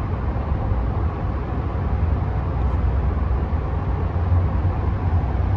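Steady low rumble of road and drivetrain noise heard inside the cab of a 2020 Ram 1500 Laramie pickup while it drives through a tunnel.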